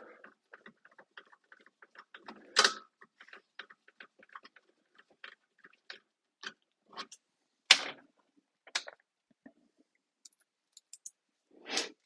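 Irregular light clicks and taps of hands handling the parts of a CADAC portable gas grill, with several sharper knocks spread through.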